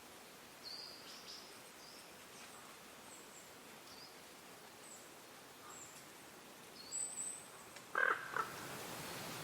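Small birds chirping now and then, short high calls over a faint steady background. About eight seconds in comes a louder pair of short knocks.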